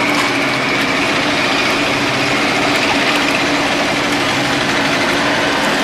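A steady motor hum, like an idling engine, over dense street noise.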